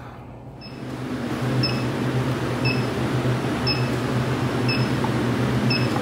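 Handheld electronic refrigerant leak detector beeping steadily about once a second, its slow idle rate, meaning no leak is picked up. Under it, the walk-in freezer's evaporator fans run with a steady hum that grows louder about a second in.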